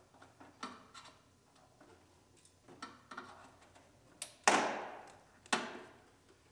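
Wiring-harness clips and connectors being worked loose from a pickup truck's fender: scattered small plastic clicks and rustling, with two louder sharp snaps about a second apart past the middle.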